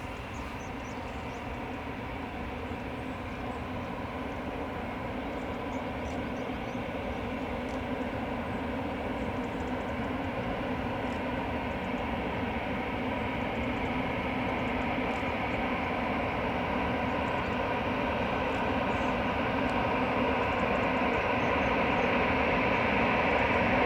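Airbus A319 jet engines running: a steady rush with a held whine on top, growing gradually louder.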